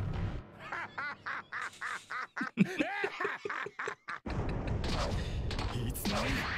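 A person laughing in a quick run of short ha-ha bursts, about four or five a second. About four seconds in, a dense rumbling noise takes over.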